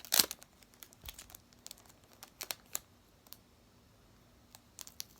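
Tape-covered paper crinkling and crackling as it is handled and cut, in a string of short crackles with the loudest one right at the start and a quiet stretch after the middle.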